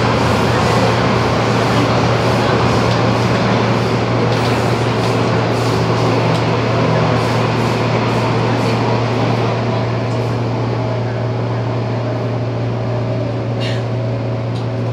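MTR subway train running, a steady rumble and hiss with a strong low hum, easing slightly about two-thirds of the way through. A brief high squeak sounds near the end.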